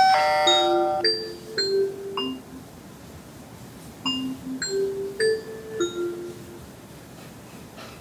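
Alexa doorbell announcement chime through an Echo Show's speaker, set off by pressing the button on a Lorex video doorbell. A bright, many-toned chime strike comes at the press, then a short melody of clear bell-like notes, and a second phrase of notes about four seconds in.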